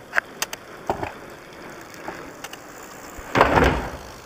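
BMX bike's tyres rolling up a small wedge ramp and launching off it: a loud rough rush lasting about half a second near the end, after a few scattered sharp clicks in the first second.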